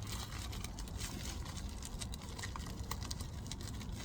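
A package being unpacked by hand: scattered small clicks and light rustles over a steady low hum.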